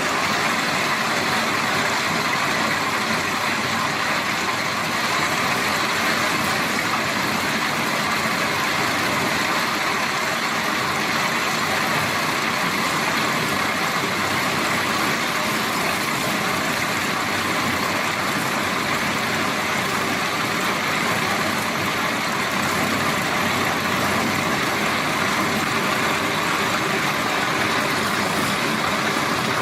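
Heavy road-construction machinery running steadily, a constant engine and mechanical noise that does not change.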